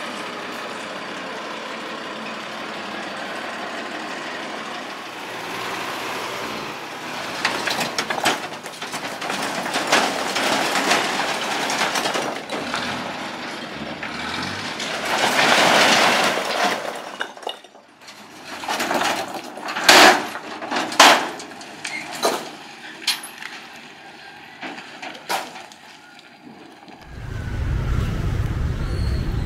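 ZIL-164 dump truck tipping out a load of rock. Its engine runs steadily at first, then stones slide and pour out of the raised bed in a growing clattering rush. A few separate heavy knocks of single rocks come after it, and a low engine rumble comes in near the end.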